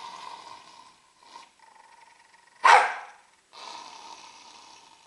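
Small long-haired dog barking: one loud, sharp bark a little past halfway, with quieter drawn-out sounds before and after it.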